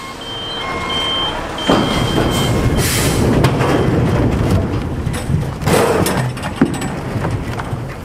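Large logs sliding out of a tipped shipping container on a tipper truck and tumbling onto the ground, a heavy rumbling with several knocks that grows louder about two seconds in, over the running truck engine. A thin high squeal sounds in the first two seconds.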